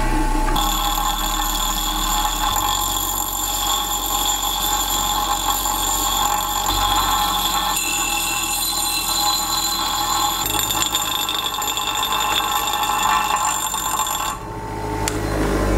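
Delta bench grinder running while the steel head of an old Craftsman hatchet is pressed against its wheel, a steady high-pitched grinding whine over the motor's hum, reshaping the head. The whine drops out briefly near the end as the steel comes off the wheel, then resumes.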